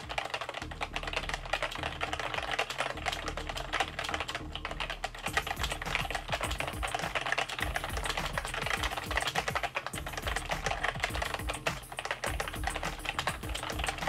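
Continuous fast typing on a Roccat Arvo compact membrane keyboard: a dense, fairly quiet patter of key presses, not mechanical-switch clicks.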